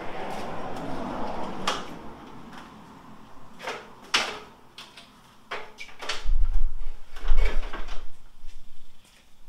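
A stepladder being folded and moved: scattered knocks and clanks of its frame, with heavier thumps a little past halfway as it is set against the wall.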